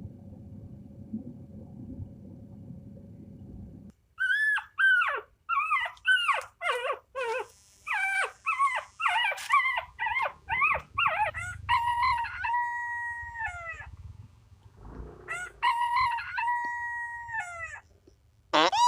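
A low rumbling noise for about four seconds, then a dog yelping in a quick series of short calls that slide downward in pitch, turning into longer, level howls near the end.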